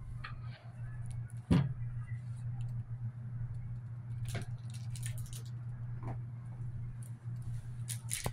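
A silicone soap loaf mold being handled and peeled off a cured neem soap loaf: one sharp knock about a second and a half in, then scattered soft clicks and taps, over a steady low hum.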